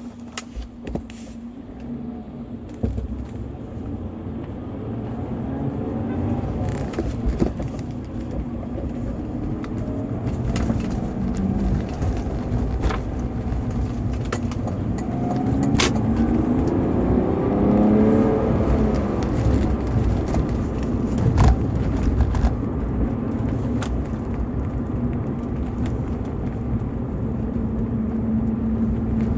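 BMW E46 320i's stock 2.0-litre M52TU B20 straight-six running under way, its note rising and falling with engine speed twice over a steady drone. Scattered sharp knocks and clicks sound over it.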